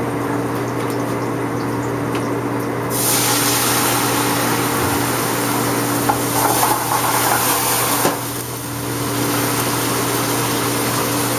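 White wine poured into a hot sauté pan of shallots, hissing and sizzling as it deglazes the pan. The hiss starts suddenly about three seconds in, dips briefly around eight seconds, then carries on. A steady low hum runs underneath.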